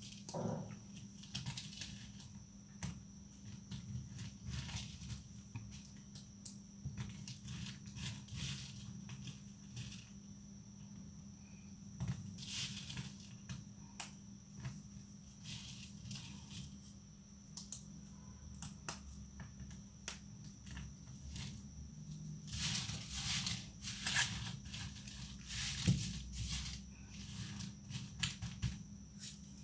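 Plates of dried leftover soap being broken: a run of sharp cracks and crumbling crackles, busiest about three-quarters of the way through, over a faint steady hum.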